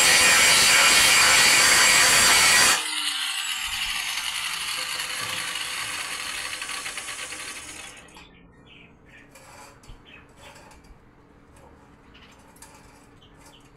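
Angle grinder cutting metal; the loud cut stops suddenly about three seconds in, the grinder runs on more quietly and winds down over the next few seconds, then light metallic clicks and clinks follow.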